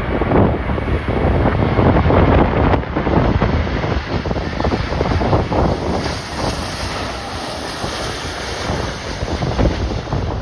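Strong, gusty storm wind buffeting the microphone, a loud rushing that swells and dips with each gust.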